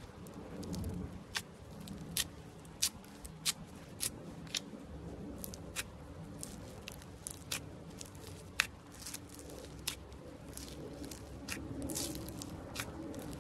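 Foam-bead slime (floam) squeezed and pressed by hand, the beads giving off irregular crackles and sharp little pops over a soft squish.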